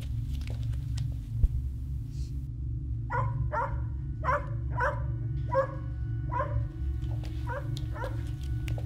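A dog barking repeatedly, about two barks a second, starting about three seconds in, over a low steady rumble. A single sharp thump about a second and a half in is the loudest moment.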